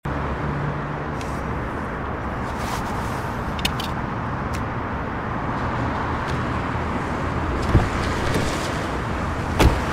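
City street traffic: a steady wash of passing car and tyre noise, with a couple of dull thumps near the end.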